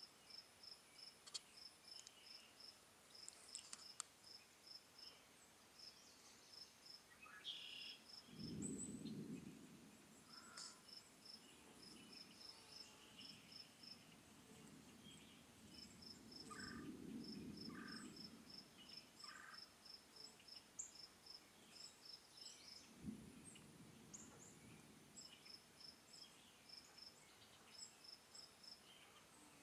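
Crickets chirping in a steady pulsed rhythm, with a few scattered bird chirps. Low distant thunder rumbles three times: about eight seconds in, again around sixteen seconds, and a sharper-starting one near twenty-three seconds.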